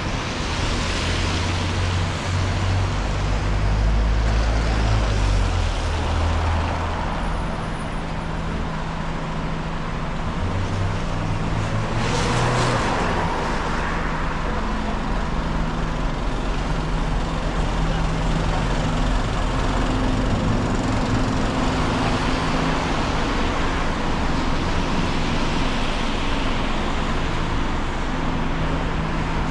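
City street traffic: cars and other motor vehicles driving past, engines running and tyres on the road. One vehicle passes close about twelve seconds in.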